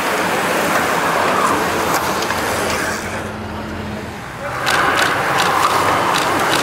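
A bunch of road racing bicycles rushing past: tyres hissing on the asphalt. The noise sags about three seconds in while the road is empty, then returns about a second and a half later as the next group sweeps by with a run of quick clicks.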